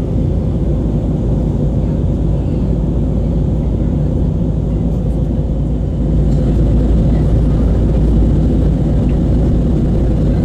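Airbus A320neo cabin noise in the climb, heard from a window seat: a steady low rumble of its CFM LEAP-1A engines and the airflow over the fuselage, growing a little louder about six seconds in.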